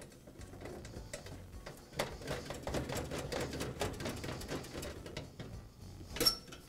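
Hand screwdriver driving a screw into a vent-fan-heater's sheet-metal housing to fasten the baffle: a rapid run of small clicks and scraping from about two seconds in, with one sharper click near the end.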